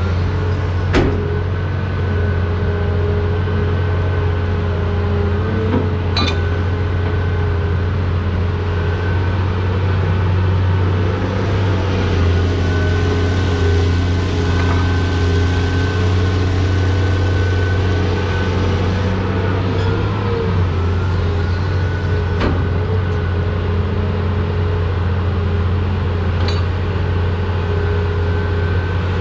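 Caterpillar 330 hydraulic excavator's diesel engine running steadily with a deep hum, with a steady whine from the hydraulics over it and a few short knocks.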